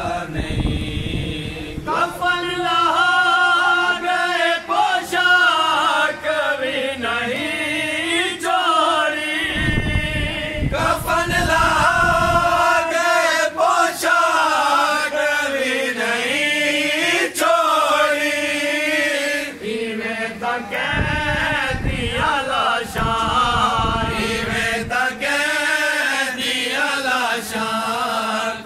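Men's voices chanting a noha, a mourning lament for Imam Husayn, sung unaccompanied in long, drawn-out phrases.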